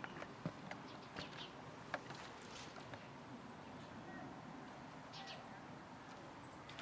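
Quiet outdoor ambience with a few brief, scattered bird chirps and small clicks over a faint steady background.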